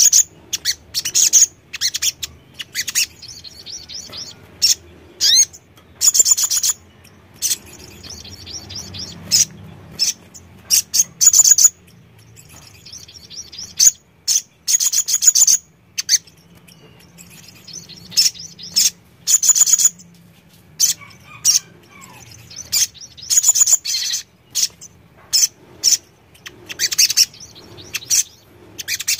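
Caged male sunbird (sogon) singing: fast, high-pitched twittering bursts about a second long, repeated again and again with short gaps between them.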